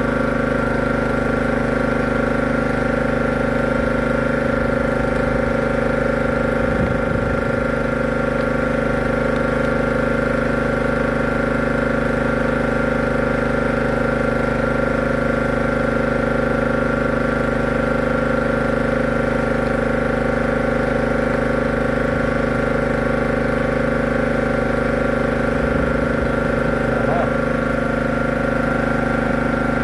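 A machine running with a steady, unchanging hum.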